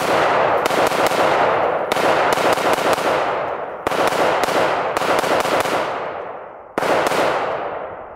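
AR-15 rifle in 5.56/.223 firing rapidly, shot after shot in long strings with short breaks, each string ringing with a long echo. The firing stops about seven seconds in and the echo fades out.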